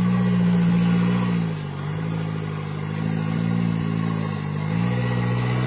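Rock crawler's engine revving in surges as it works up over rocks, the pitch dropping about a second and a half in, climbing slowly, then jumping up again near the end.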